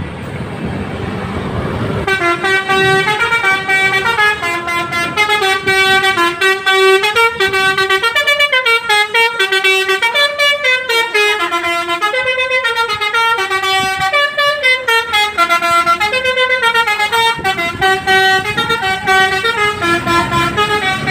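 Musical multi-tone bus horn of the telolet or basuri kind, playing a fast melody of stepping tones that starts about two seconds in and carries on.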